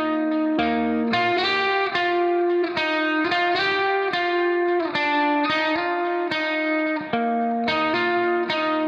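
Background instrumental music: a plucked-string melody of short struck notes at a steady pace.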